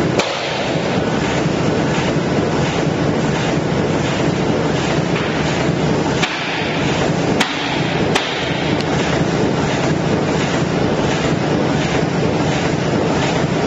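Steady, loud running noise of pouch-making production machinery, with a faint regular beat and a few sharp clicks near the middle.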